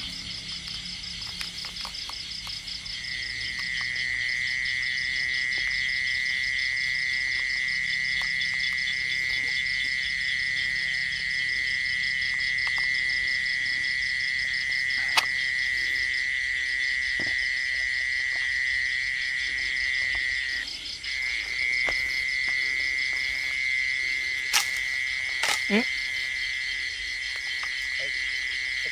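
Night chorus of crickets and other insects trilling steadily. A louder continuous trill at one pitch comes in a few seconds in and breaks off for a moment later on, with a few sharp clicks here and there.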